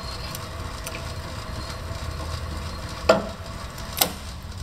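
Walker Turner 20-inch drill press with its 3/4 hp three-phase motor running, a low steady hum with quiet bearings in good shape. Two sharp clacks about three and four seconds in come from the feed handle and the control buttons being worked.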